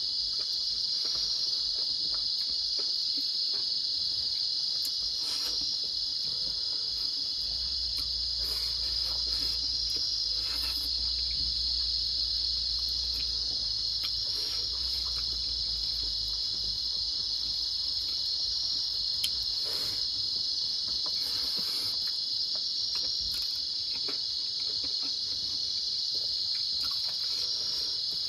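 Steady, unbroken chorus of crickets, with faint clicks and smacks from eating rice and meat by hand.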